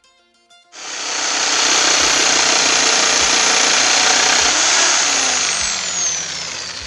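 Electric jigsaw switched on and cutting through hard wood, a loud steady buzzing rasp that starts about a second in and eases off near the end with a falling whine.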